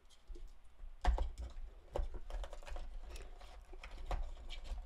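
Irregular light clicks and taps of a charger and its cable being packed back into a rigid cardboard box, with low handling bumps; the sharpest knock comes about a second in.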